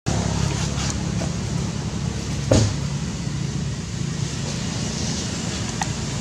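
A steady low motor hum over background noise, broken by one short, loud sound about two and a half seconds in.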